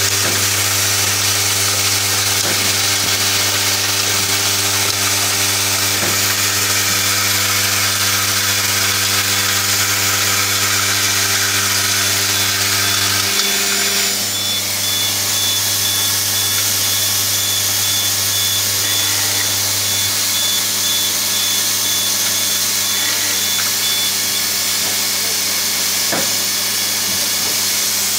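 Automated clamping and screwing assembly machine running: a steady electric hum with a hiss on top and a few light clicks. The hum changes about halfway through, when a faint high whine comes in.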